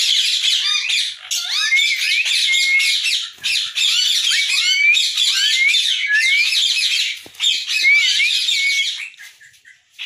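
Cage parrots chattering, many shrill whistles and squawks overlapping without a break, then thinning out about nine seconds in.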